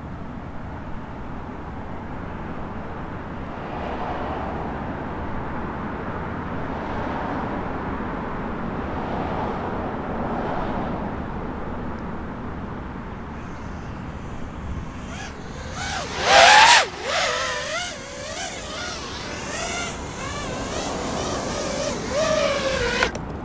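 FPV racing quadcopter's motors and propellers whining as it flies back in close, the pitch swooping up and down with the throttle. It is loudest about two-thirds of the way in. Before that there is a steady rushing noise with slow swells.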